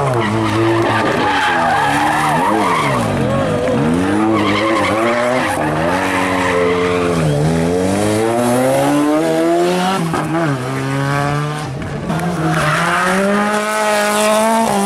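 Rally car engines revving hard through donuts on tarmac, the engine note rising and falling every few seconds with the throttle, over the hiss of spinning, skidding tyres.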